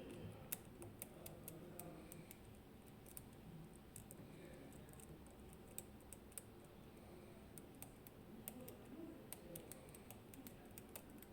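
Faint, irregular clicking and ticking of a lock pick working the pin stack of a Medeco M4 high-security lock under tension, as the pins are lifted and rotated one by one.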